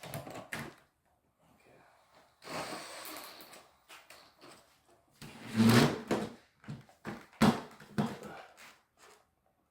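Irregular knocks, clunks and scraping from handling tools and the light fixture, with a brief scraping stretch early on, the loudest clatter about halfway through and a sharp knock soon after.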